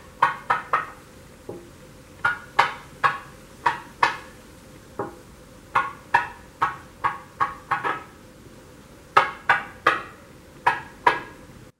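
Wooden fidget stick with steel weights in its tips flipping end over end, its ends clacking on a stone countertop. It makes about two dozen sharp knocks in irregular runs, several a second, with short pauses between runs.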